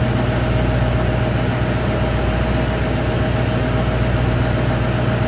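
Steady hum of the truck's Duramax V8 diesel idling, with a constant low drone and a thin steady tone above it.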